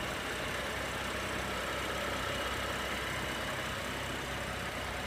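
BMW X6 (F16) engine idling steadily with an even hum.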